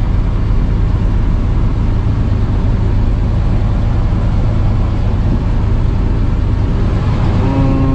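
Old carbureted truck engine running at a steady idle, a low even rumble. A steady higher-pitched whine joins near the end.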